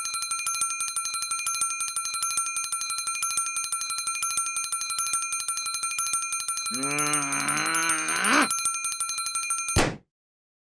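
Alarm clock bell ringing in a fast, unbroken trill of strikes. About seven seconds in, a drawn-out voice sounds over it for under two seconds and rises in pitch at the end. The ringing cuts off suddenly near the end.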